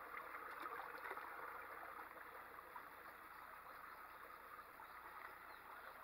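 Faint, steady sound of creek water flowing.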